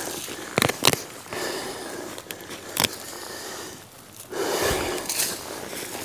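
Digging in loose garden soil and roots with a garden fork and gloved hands: a few sharp clicks early, then a stretch of scraping and rustling a little past the middle.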